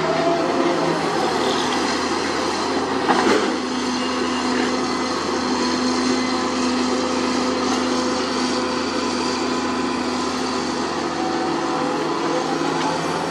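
Sunward SWE210 hydraulic excavator's diesel engine running steadily under load as it digs and swings a bucket of soil, with one sharp knock about three seconds in.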